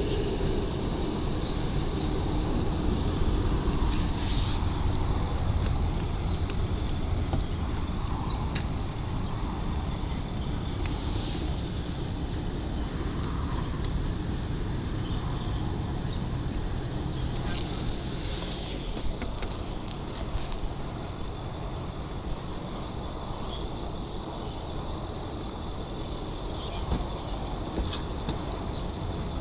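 Outdoor ambience: an insect chirping in a steady, rapid, even rhythm over a low rumble, with a few short bird calls.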